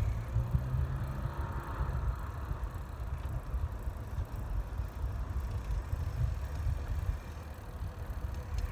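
Wind buffeting the microphone of a moving bicycle, an uneven low rumble, with faint road noise.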